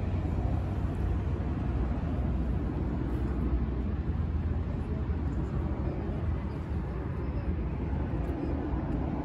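Steady low rumble of wind buffeting the microphone over a constant outdoor wash of noise.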